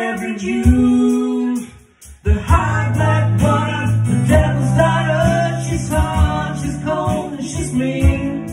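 A live country song: sung vocals over strummed acoustic guitar and keyboard. The music breaks off briefly about two seconds in, then comes back with a held low note under the singing.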